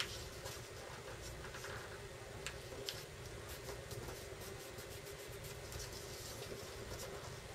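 Sheet of paper being handled and creased while folding a paper airplane: faint rustles and small crisp clicks of the paper, scattered through, over a low steady room hum.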